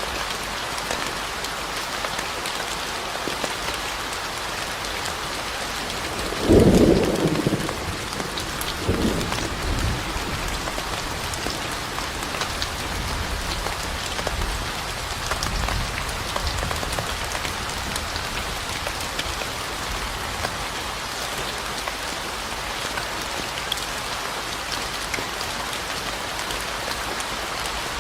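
Steady rain falling, with a low rumble of thunder about six and a half seconds in and a weaker rumble a couple of seconds later.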